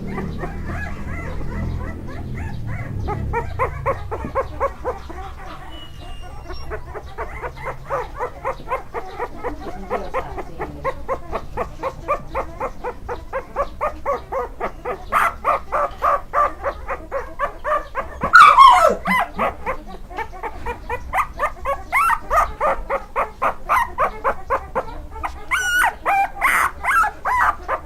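Staffordshire Bull Terrier puppies whimpering and yipping in quick, repeated cries, with one louder yelp about two-thirds of the way through.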